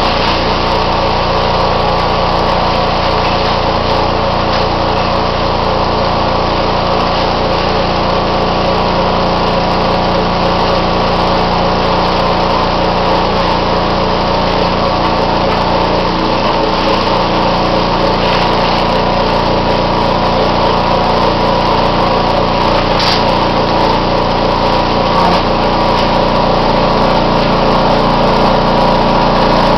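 Bulk-bag filling equipment running steadily as sawdust is fed into the bag: an even machine hum with several held tones over a constant hiss.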